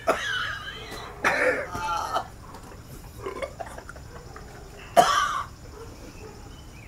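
A man coughing and gagging, close to vomiting, after gulping lemon juice in an eating challenge. It comes in a few short bouts, the loudest about five seconds in.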